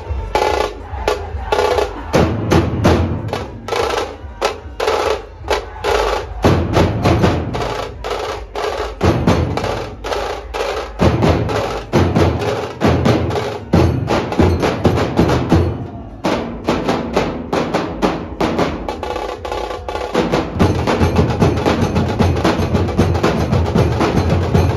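A Nashik-style dhol-tasha ensemble playing a fast rhythm: rapid, unbroken tasha stick strokes over heavy beats from the big barrel dhol drums, which drop out briefly several times between phrases.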